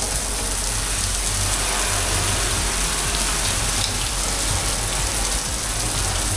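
A garden hose spray nozzle jetting water onto a fibreglass boat hull, a steady hiss of spray hitting the surface, rinsing the wet-sanded antifoul residue off the hull.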